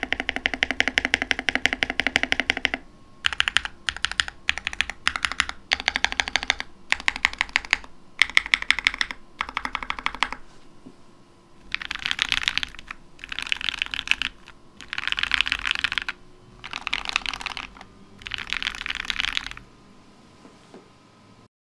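GK61 60% mechanical keyboard with lubed KTT Rose linear switches, its case filled with pennies, dampened with Kilmat and PE-foamed, being typed on. Steady runs of keystrokes go on for about ten seconds, then come five short, dense bursts of fast typing about a second each.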